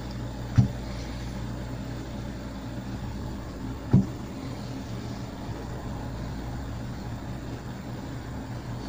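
Two dull thumps of bottles set down on a tabletop, one about half a second in and one about four seconds in, over a steady low hum.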